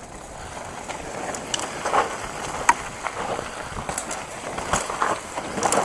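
Mountain bike rolling fast down a rough dirt and stone trail: tyre noise over loose ground that grows louder, with the bike rattling and several sharp knocks as it hits bumps and rocks.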